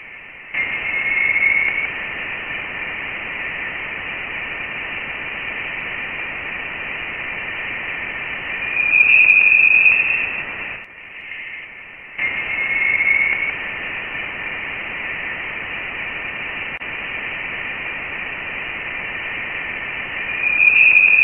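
Voyager 1's recording of the solar wind's termination shock: plasma-wave data converted to audible sound. It is a steady radio-static hiss with a higher whistling band that swells louder several times. The roughly ten-second recording plays twice, with a brief dip between the two plays.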